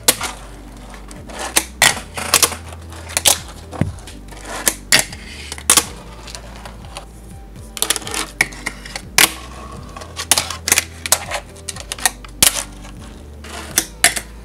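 A fingerboard clacking against a wooden fingerboard bench and the mat as tricks are done: sharp, irregular clicks and clacks, one to three a second, over quiet background music.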